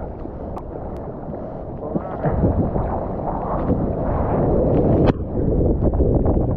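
Ocean water sloshing and splashing around a mouth-mounted action camera in the surf, with wind buffeting the microphone. It grows louder about two seconds in, with scattered sharp splashes.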